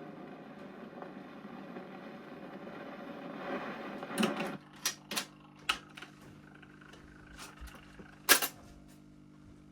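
The tail end of a 78 rpm record playing: surface noise and the last fading sound of the song. About four and a half seconds in this gives way to a steady low hum and a run of irregular sharp clicks, the loudest near the end, as the record finishes.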